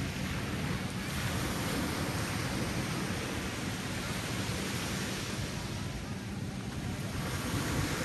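Gentle ocean surf breaking and washing up a sandy beach, a steady wash of waves that eases a little about six seconds in and builds again near the end.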